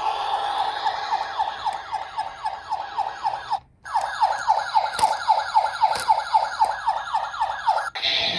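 Toy minicar's electronic siren sounding a rapid falling yelp, about five sweeps a second. It breaks off briefly a little under four seconds in, then resumes and cuts off suddenly near the end.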